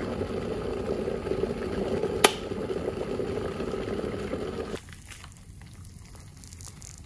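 Electric kettle rumbling at the boil, with a single sharp click about two seconds in as its switch snaps off. Nearly five seconds in the rumble cuts out, and a fainter hiss follows as hot water pours into a cup of instant noodles.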